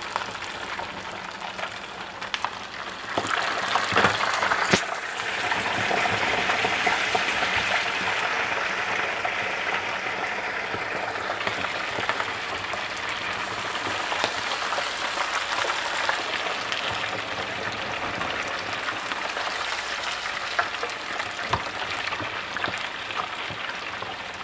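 Baked turkey wings deep-frying in hot grease: a steady crackling sizzle that swells louder about three seconds in, then holds steady as the skin crisps.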